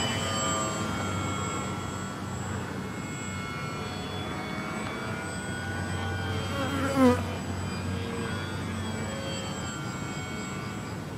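Radio-controlled aerobatic model plane's motor and propeller buzzing overhead, its pitch drifting with the throttle as it manoeuvres. About seven seconds in there is a brief, louder swoop that falls in pitch.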